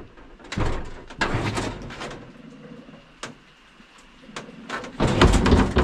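Metal door of an abandoned passenger train car being worked open and shut by hand, scraping and clattering in two loud spells, one about half a second in and one near the end, with a few sharp knocks between.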